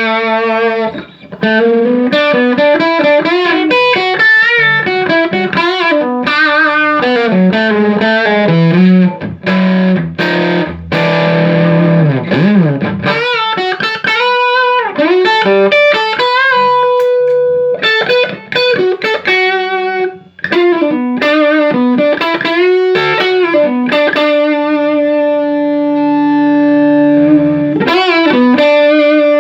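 Electric guitar lead lines played through a Fender '57 Custom tweed amplifier, with string bends, vibrato and long held notes. The amp has just been repaired: its leaky preamp and phase-inverter coupling capacitors were replaced with new Mallorys.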